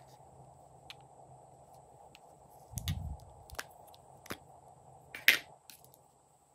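Plastic caps being pulled off small lip balm tubes and the tubes handled: a few sharp clicks and light knocks, the loudest a pop about five seconds in, over a faint steady hum.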